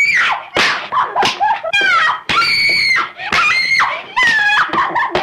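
A woman screaming in repeated high-pitched shrieks as she is beaten, with sharp slaps between the cries.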